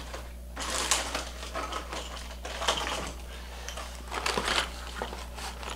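Plastic lure packaging rustling and clattering as it is rummaged through and picked up, in a few short irregular bursts, over a low steady hum.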